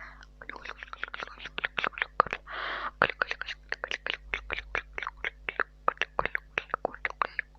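Rapid wet mouth and tongue clicks made right at a mini microphone, several a second, the 'sk, tico, chucko' ASMR mouth-sound triggers, with one short breathy hiss about two and a half seconds in.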